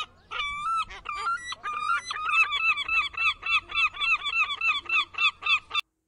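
Gull's long call: a few drawn-out calls, then a fast run of shorter repeated calls, about three a second, that cuts off suddenly near the end.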